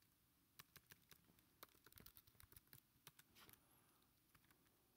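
Faint keystrokes on a computer keyboard: an uneven run of quick taps as a terminal command is typed.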